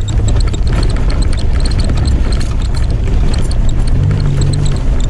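Inside a 4x4 crawling over a rough, rocky dirt track: a steady engine drone with frequent knocks and rattles from the body and suspension over the bumps. The engine note rises about four seconds in as it takes more throttle.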